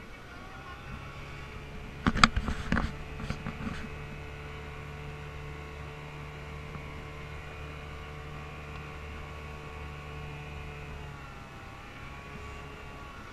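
Boat motor running steadily, its pitch shifting slightly near the start and again near the end. A quick cluster of sharp knocks, the loudest sounds here, comes about two seconds in.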